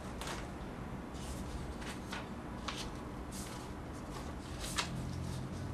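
Several short rustles of something being handled, scattered irregularly over a steady low room hum.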